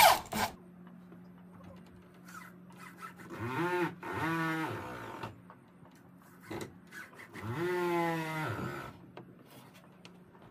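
An animal calling twice: two long calls, each rising and then falling in pitch, the first about three seconds in and the second about seven seconds in. A faint steady hum runs underneath.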